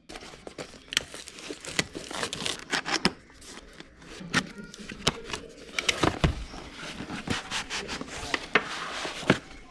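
Packaging being handled while unboxing a Kingrinder manual coffee grinder: crinkling and rubbing of wrapping with many small irregular clicks and taps.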